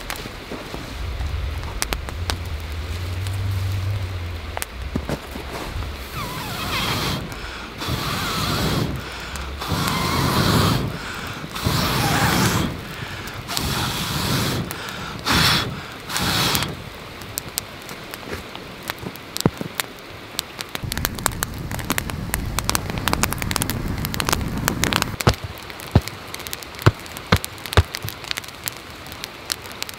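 Small campfire of dry spruce twigs crackling with many sharp little pops, after a series of about seven long breaths blown onto it in the first half to bring up the flames.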